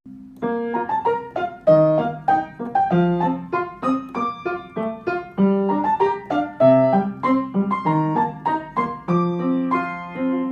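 Background music: a piano playing a quick melody of single struck notes over lower notes.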